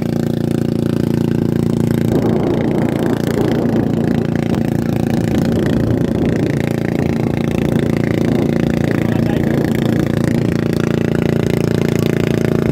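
Small outrigger boat's engine running at a steady speed while it tows a bamboo raft on a rope: an even, unchanging drone.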